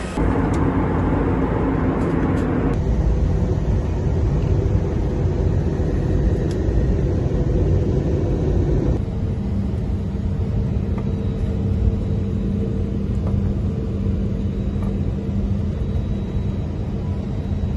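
Steady low roar of a passenger jet heard from inside the aircraft: engine and air noise, in short clips that change abruptly about three and nine seconds in. After the second change a steady low hum sits under the roar while the plane taxis.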